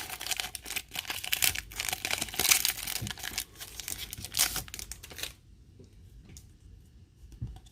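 Foil Pokémon booster pack wrapper being torn open and crinkled in the hands, a dense crackling for about five seconds before it stops.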